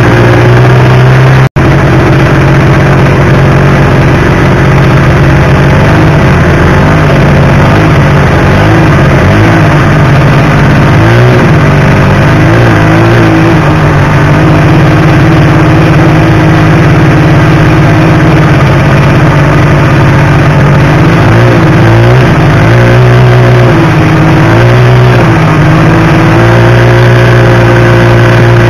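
Snowmobile engine running close to the microphone, steady at a cruising throttle, its pitch dipping and picking back up several times around the middle and again near the end as the throttle is eased off and reopened.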